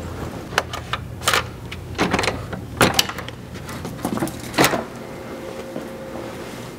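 Hotel room door with an electronic keycard lock being unlocked and pushed open: a string of sharp clicks and knocks, three of them louder, over a low steady hum that stops near the end.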